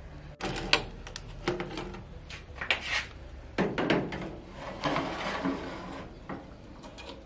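A metal baking tray knocking, clattering and scraping against the rack of a countertop toaster oven as it is slid in with a tray lifter: a series of uneven knocks and short scrapes.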